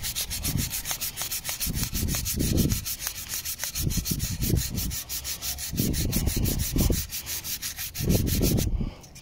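Abrasive paper rubbed in quick back-and-forth strokes over a polished alloy wheel rim, smoothing out curb-rash gouges. The scraping stops abruptly just before the end.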